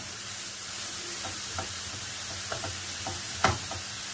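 Sausage, onion and mushrooms sizzling steadily in a frying pan while being stirred with a wooden spoon. The spoon knocks against the pan a few times, loudest about three and a half seconds in.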